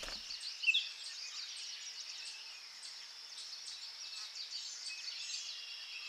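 Forest ambience: a steady high insect buzz with many short bird chirps and calls over it, one louder chirp about a second in.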